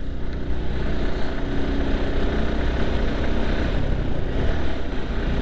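Motorcycle engine running steadily while being ridden up a steep, winding hill road, mixed with a steady rush of road and wind noise.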